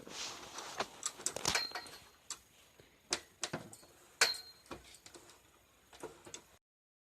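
Irregular clicks and knocks, a dozen or so, two of them ringing briefly after the hit; the sound cuts off abruptly near the end.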